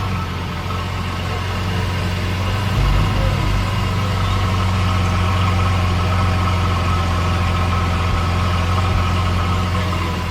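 Lamborghini Veneno's V12 engine running steadily: a constant low drone that holds its pitch, neither revving up nor dropping away.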